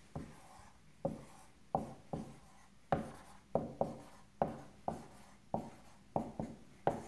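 Dry-erase marker writing on a whiteboard: about a dozen short, sharp strokes, roughly two a second, as an equation is written out.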